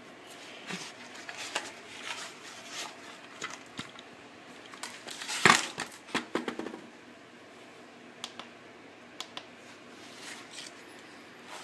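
Handling noises from a plastic bicycle helmet: scattered clicks, taps and rubbing as hands press at its clip-in LED light and turn the helmet over, with one louder knock about halfway through.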